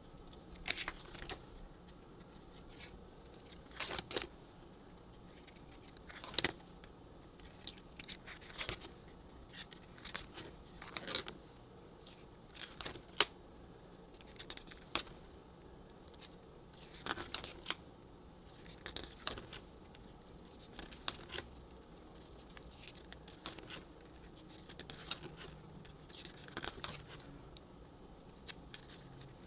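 Paper pages of a spiral-bound desk calendar being turned by hand: short papery flicks and rustles at irregular intervals, about one every second or two.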